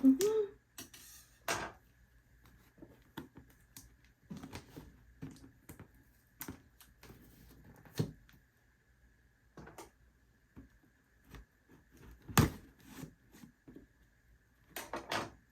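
Hands handling a phone box and its packaging: scattered taps, clicks and light scrapes with quiet gaps, the sharpest knock about twelve seconds in.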